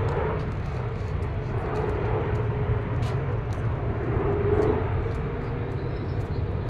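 Low-flying jet airliner passing overhead: a steady engine rumble with a droning tone. A few sharp knocks from tennis balls being hit, the clearest about three seconds in.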